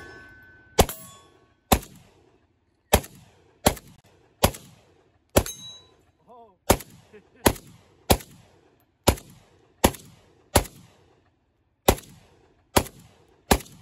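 Century Arms Draco, a short-barrelled Romanian AK pistol in 7.62×39, fired semi-automatically: about fifteen single shots at a steady pace of roughly one a second, each with a short ringing tail.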